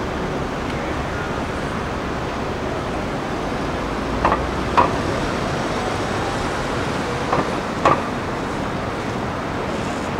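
Steady city street traffic noise. Two pairs of short knocks, each pair about half a second apart, stand out, one pair a little before halfway and one later.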